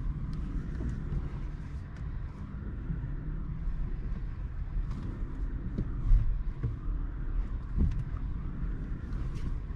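Peugeot e-208 electric car rolling along, with no engine sound: a steady low tyre-and-road rumble and scattered light knocks and rattles.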